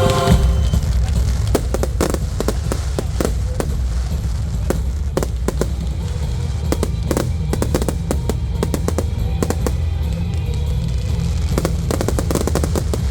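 A fireworks display: many sharp firework bangs and crackles at irregular intervals, a few close together in clusters, over loud music with a heavy low bass.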